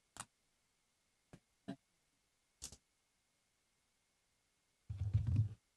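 A few scattered soft clicks and knocks, then one short, low, rumbling thump near the end, such as something being handled or set down close to a microphone. Dead silence falls between them.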